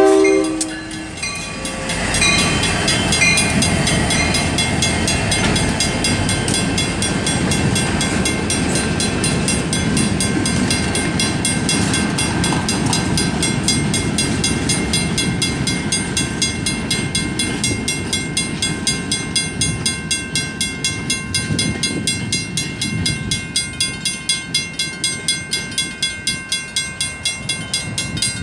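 Union Pacific freight train rolling through a grade crossing, the locomotive passing and then boxcars rumbling over the rails, while the crossing's Griswold mechanical bells ring with rapid, even strikes. The train's rumble eases near the end, leaving the bells clearer.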